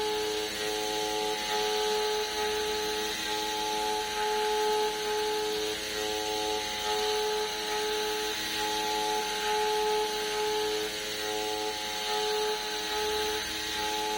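CNC mill cutting 303 stainless steel: a steady whine of several held tones from the spindle and cutter, one of them cutting in and out every half second to a second, over a constant hiss.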